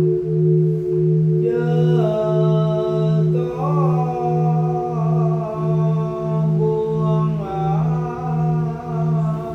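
A singing bowl's steady hum, its tone pulsing about one and a half times a second, joined about a second and a half in by a voice chanting in long held notes with a few slow bends in pitch.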